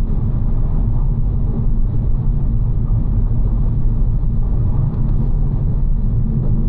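BMW G82 M4's twin-turbo inline-six and road noise as a steady low drone while driving at an even pace.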